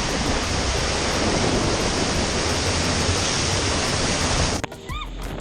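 Loud, steady rush of water and wind buffeting the microphone during a ride down a water park raft slide. It cuts off abruptly near the end, leaving quieter background with one brief arching whistle-like call.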